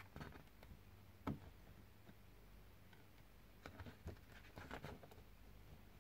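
Faint handling noises of box contents over quiet room tone: light scratches and small clicks, with one sharper knock about a second in and a cluster of clicks near the end.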